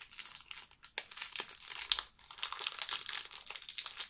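Foil wrapper of a trading-card pack crinkling as it is pulled open by hand, a quick run of crackles.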